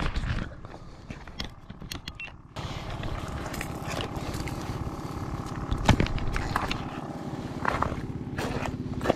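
A small engine running steadily, cutting in abruptly about two and a half seconds in, with scattered sharp clicks before and over it.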